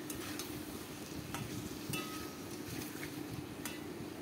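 Chicken pieces frying in oil in a metal kadai, stirred with a metal spatula: a steady sizzle with several short clicks and scrapes of the spatula against the pan.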